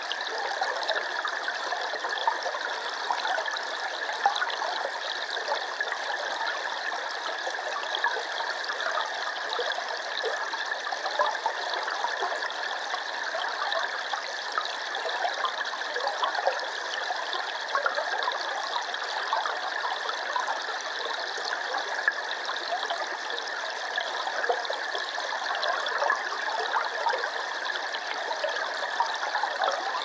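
Shallow river current over a cobble bed heard underwater through hydrophones: a steady rushing hiss dense with tiny pops and ticks, with no deep rumble.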